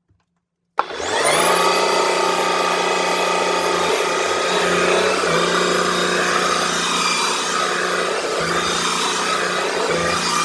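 Shark EVOPOWER SYSTEM iQ+ cordless stick vacuum switched on about a second in: its motor spins up with a rising whine, then runs steadily at a high pitch.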